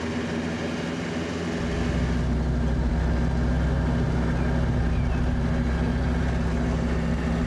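A small truck's engine running steadily on the road. About a second and a half in, the sound shifts to inside the cab, where the low drone of the engine and road is louder.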